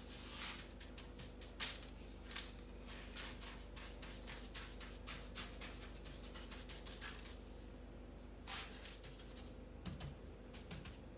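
Hands packing and patting a wet crust of coarse rock salt and egg white over a whole sea bass on a paper-lined baking tray. The salt gives a run of small crunchy crackles and clicks, with a few sharper taps in the first few seconds.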